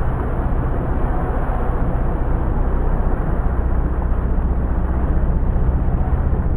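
Outboard motor running steadily on a small inflatable boat under way, with a constant rushing noise over the low engine hum.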